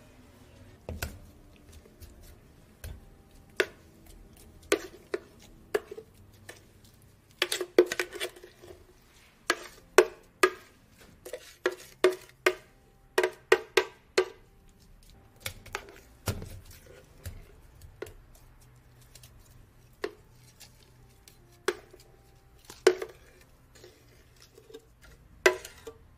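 Irregular clinks and knocks of drink-making utensils and plastic cups on a stainless steel counter, some with a short ring, coming in a quick run in the middle.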